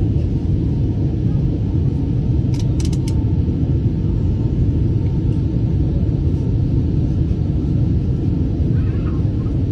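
Steady low rumble of an airliner cabin in flight, engine and airflow noise, with a few faint clicks about two and a half seconds in.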